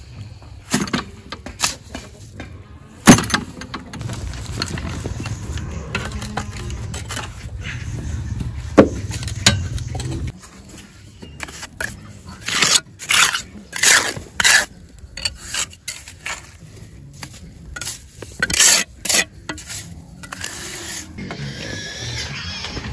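Steel mason's trowel scraping and pressing wet cement mortar against concrete blocks, in a run of short strokes with sharp knocks here and there.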